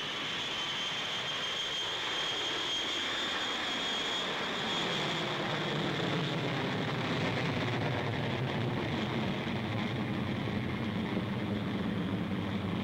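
Jet airliner's engines running: a high steady whine, rising slightly in pitch, over the first few seconds, then a deeper rumble builds and holds as the aircraft rolls down the runway for takeoff.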